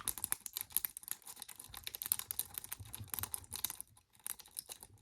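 A metal cross rake worked rapidly back and forth in a cross cabinet lock, a dense run of small metallic clicks and scrapes as the pins are raked, with a brief pause about four seconds in.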